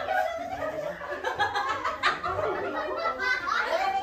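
A group of people laughing and talking.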